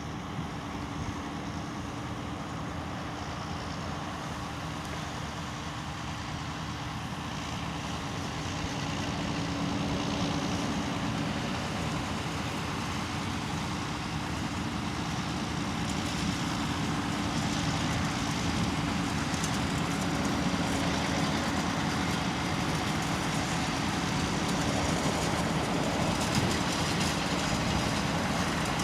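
Farm tractor working in a field: steady engine noise with a constant hum, growing gradually louder from about a quarter of the way in.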